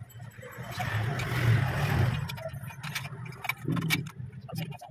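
A passing vehicle's engine and road noise swells and fades about one to two and a half seconds in, over a low hum. Later come several light metallic clicks and clinks from hand work on the motorcycle's rear chain adjuster.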